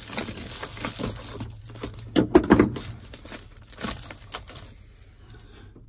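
Crinkling, tearing and scraping of material handled by hand, with irregular knocks, loudest about two seconds in and dying down near the end.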